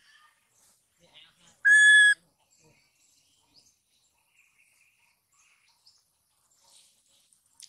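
Baby monkey giving one short, loud, high-pitched cry, a steady whistle-like note lasting about half a second, about two seconds in.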